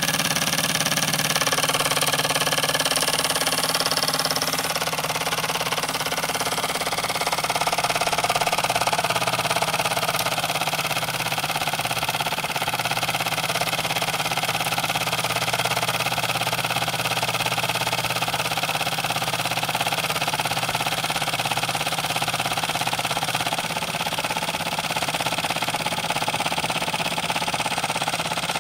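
Wilesco D10 toy steam engine running steadily at speed, with a fast, even rattle from the engine vibrating on the ceramic tile it sits on.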